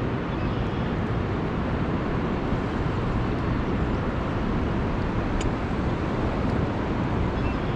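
Steady rushing noise of fast river current, even in level, with one brief sharp click about five and a half seconds in.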